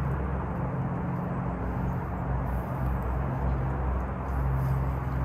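Steady low hum with a fan-like rush from an outdoor air-conditioner condenser unit running.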